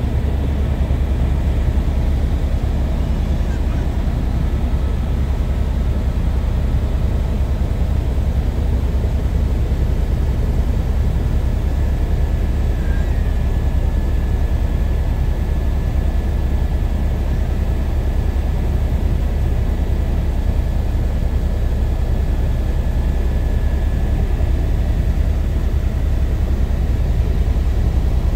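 Helicopter engine and rotor noise heard from inside the cabin: a loud, steady, low drone.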